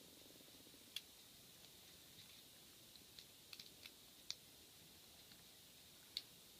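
Faint, scattered sharp clicks of a hook pick lifting and setting the pin stacks of a Sterling rim cylinder lock, a few clustered together near the middle. The lock is in a slight false set, which the picker takes as a sign of security pins.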